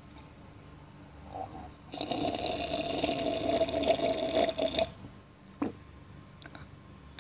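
A person slurping coffee: one long slurp of about three seconds, starting about two seconds in. A short click follows.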